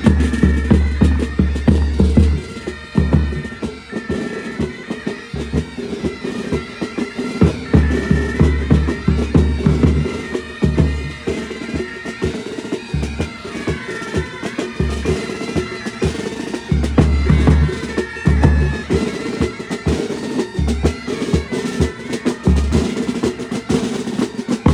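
Military pipe band playing: bagpipes carry a tune over steady drones, with snare drums rattling and a bass drum beating heavily.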